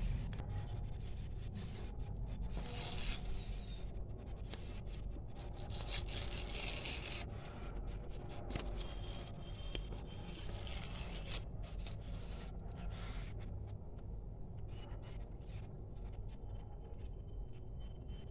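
Pink craft paper being torn by hand in a few short rips, with crackling and rustling as the paper is handled, over a steady low hum.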